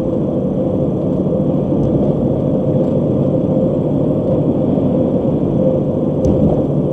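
Steady road and tyre noise with a low hum inside a car's cabin at highway speed.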